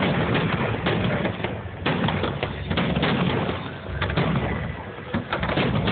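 Fireworks going off: irregular sharp pops and bangs, several a second, over a background din.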